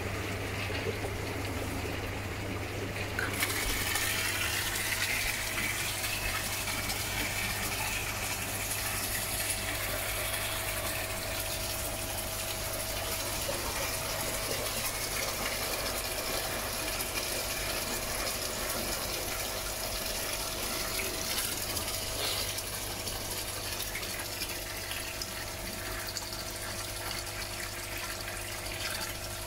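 Water rushing and bubbling through an EA Tempest pond filter once a valve is opened, starting about three seconds in and then running steadily, over the steady hum of an aquarium air pump driving air into the filter.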